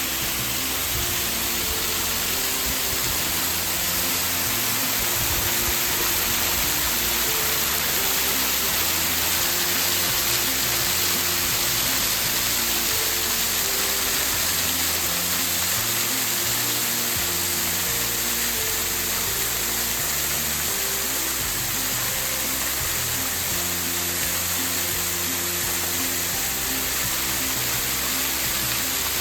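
Background music with a slow line of low notes, over a steady rushing hiss of falling water from a waterfall.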